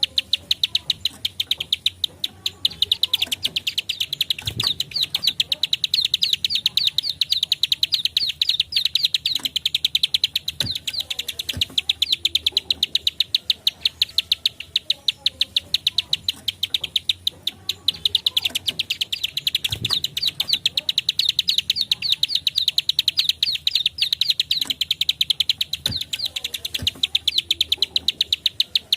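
Plain prinia (ciblek sawah) calling a rapid, unbroken string of sharp 'klik' notes, about ten a second, high-pitched and steady in pace.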